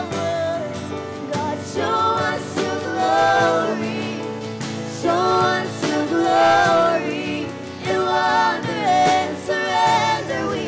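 Music: a worship song, with a singing voice carrying the melody over instrumental backing.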